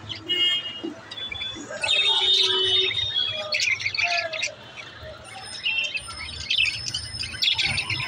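A flock of budgerigars chirping and warbling together: a busy, overlapping chatter of short high chirps, thickest about two seconds in.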